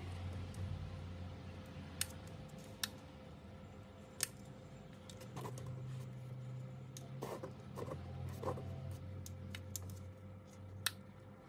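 Instant-heat transformer soldering gun humming low and steadily as it heats a wire joint on an LED strip, with a few sharp clicks and, in the middle, brief crackling at the joint.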